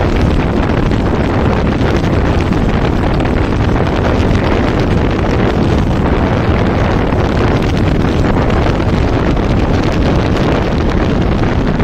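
Steady wind noise on the microphone over the low running rumble of a moving road vehicle.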